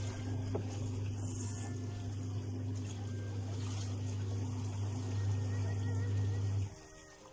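Washing machine motor running with a steady low hum, which cuts off suddenly near the end.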